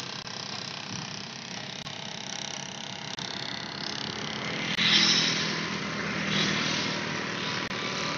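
Road traffic with motorcycles, and one motorcycle passing close about five seconds in, its engine swelling and then fading.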